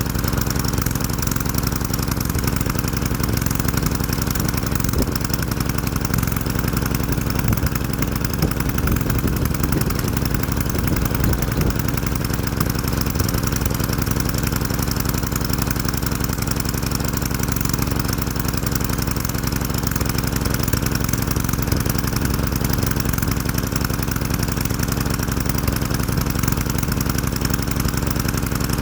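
Craftsman 3.8 hp edger's small single-cylinder engine running steadily on a freshly replaced carburetor, smoothly and without stumbling: it runs pretty good.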